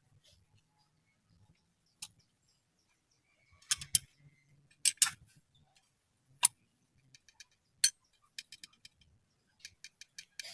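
Sharp metallic clicks and clinks of hand tools and engine parts being handled, irregular and spaced out, with a run of lighter quick ticks near the end; the engine is not running.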